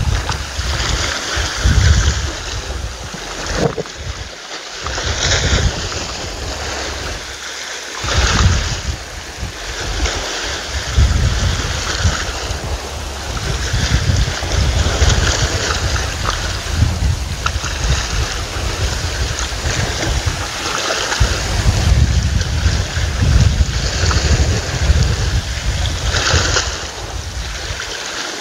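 Wind buffeting the microphone in gusts, over small sea waves washing and splashing against a rocky shore.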